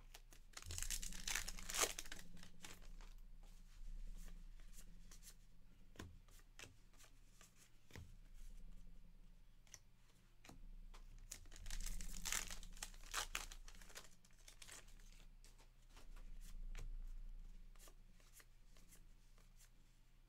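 Trading-card pack wrappers torn open and crinkled, in two bursts about ten seconds apart. Between them, light ticks and slides of cards being handled.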